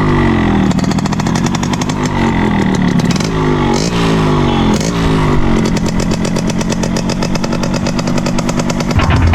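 Yamaha RX135 5-speed's two-stroke single-cylinder engine revved in several blips, its pitch falling back after each, then settling to a steady idle about five and a half seconds in. It runs with the catalytic converter removed and the original steel silencer fitted.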